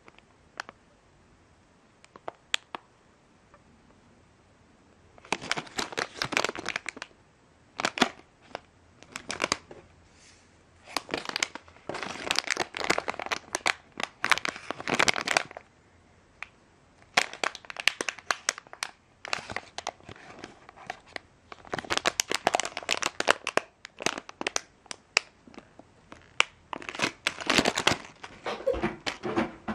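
Plastic minifigure blind bag crinkling as it is squeezed and turned over in the hands. It comes in repeated bursts of crackling with short pauses, after a few single clicks at the start.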